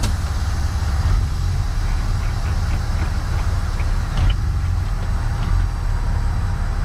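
Semi-truck's diesel engine idling, heard from inside the cab: a low, steady running with a few faint ticks.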